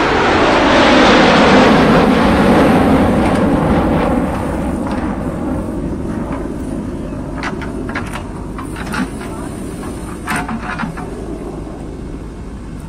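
JCB 3DX backhoe loader's diesel engine running hard under hydraulic load, loudest in the first few seconds and then settling. In the second half a series of sharp knocks and clatters sounds over it.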